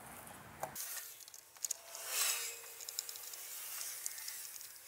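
Fingertips and fingernail rubbing and scraping at badge lettering and glue on a car's painted trunk lid. Faint scratchy rubbing with a few small ticks swells into a louder scrape about two seconds in.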